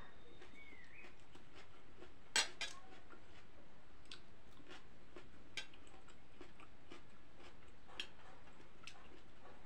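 Metal fork clinking and scraping on a ceramic plate of noodles, with one sharper clatter about two and a half seconds in and a few light taps after it, amid faint chewing.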